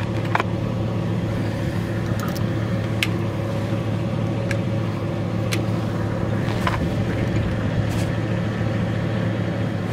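Vehicle engine idling steadily, with a few sharp clicks and clinks over it.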